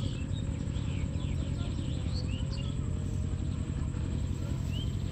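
Birds chirping outdoors: short, rising calls every second or so, with a quick run of notes about a second and a half in, over a steady low rumble.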